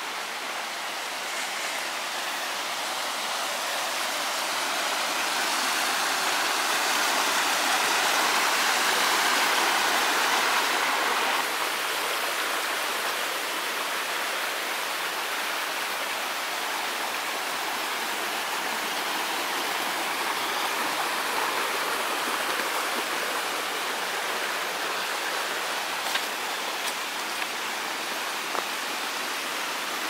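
Water of a rocky mountain stream rushing steadily over boulders. It grows louder for a while in the first half, then eases back a little.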